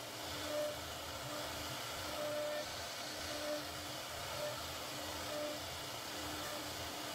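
CNC router spindle carving grooves into a wooden panel: a steady whirring hiss of the spinning cutter in the wood, with a short low hum that comes and goes about once a second.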